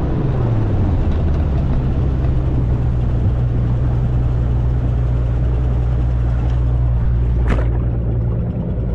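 Speedboat's outboard motor running at speed with a steady drone, over the rush of wind and water. The engine note dips slightly in the first second, then holds steady.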